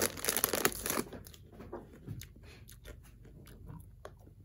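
Crunching and chewing of toffee-coated popcorn, busiest in the first second, then softer scattered crunches.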